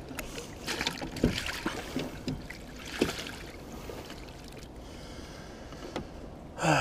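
Handling noises in a small boat while a pike is unhooked in a landing net: scattered knocks and short rustles of the net and boat, with water sounds under them and a louder noise just before the end.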